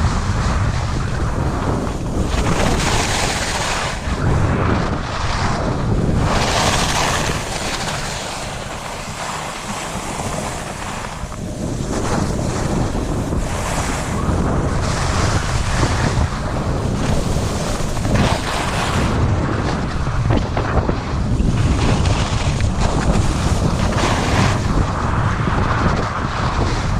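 Wind noise on the microphone at speed during a downhill run on a ski slope, with the hiss and scrape of edges on snow swelling and fading every second or two as turns are made. The rush eases briefly about a third of the way in.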